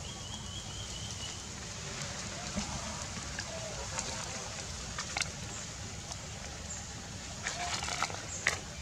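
Scattered crackles and clicks of dry leaf litter as macaques shift about, with a short cluster of crackling near the end, over a steady low background hum.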